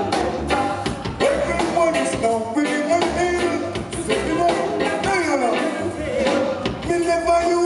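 Live reggae band playing, drums and bass under a melodic lead line.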